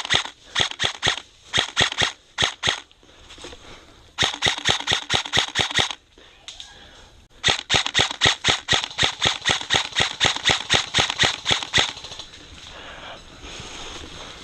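Airsoft rifle firing on full auto, sharp snapping shots at about ten a second. There are several short bursts in the first few seconds, another burst about four seconds in, and a long burst of about four seconds starting about halfway through.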